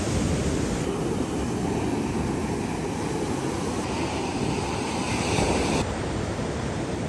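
Steady rushing noise of sea surf mixed with wind blowing on the microphone. The noise shifts abruptly in tone a few times.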